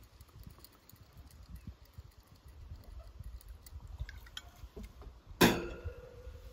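A single sharp clank of metal cooking gear about five seconds in, ringing on with a steady tone as it fades, amid faint scattered clicks.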